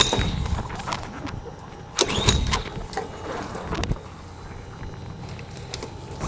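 Honda GCV160 engine on a pressure washer being pull-started twice by its recoil rope, each pull a rising whir of the engine cranking over without firing. The engine shows no sign of catching, which the owner takes for a carburetion problem from old gas.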